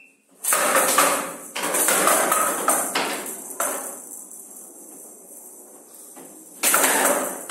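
Showdown rally: the rattle ball, with metal beads inside, jingling as it rolls and bounces across the wooden table, with a run of sharp knocks in the first few seconds as it is struck by the bats and hits the side rails. It then rolls, rattling more quietly, for a couple of seconds before another loud knock near the end.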